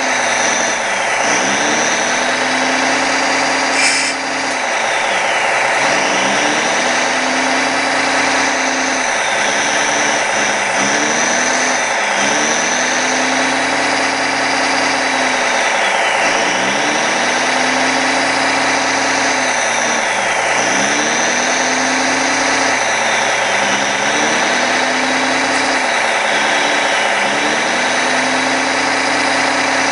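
Scale RC excavator's sound module playing a diesel engine that runs on steadily, its revs dipping and climbing back every few seconds as the clam bucket is worked. A short click about four seconds in.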